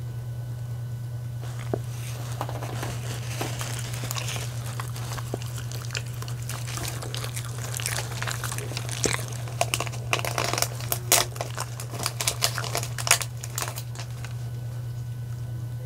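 Thin plastic wrapping crinkling and crackling as it is handled with gloved hands, building to sharper crackles in the middle of the stretch, over a low steady hum.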